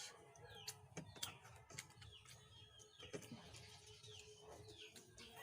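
Quiet background with a few faint bird chirps, each a short falling note, scattered through it, and some faint clicks.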